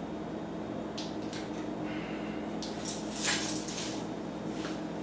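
Hands working the greasy parts of a bicycle rear derailleur's jockey wheel apart: light scrapes and small clinks, the loudest a little after three seconds in, over a steady low hum.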